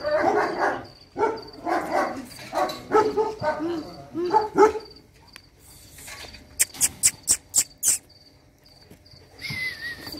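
Several dogs barking and whining in short, rising and falling calls for the first few seconds. About six seconds in comes a quick run of about seven sharp taps, and crickets chirp steadily throughout.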